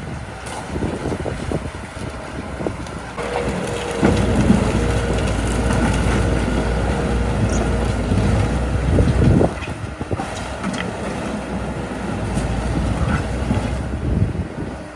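Komatsu D37P bulldozer's diesel engine running. From about four seconds in it grows louder, with a steady whine, then drops back after about nine and a half seconds. Scattered clanks come through it.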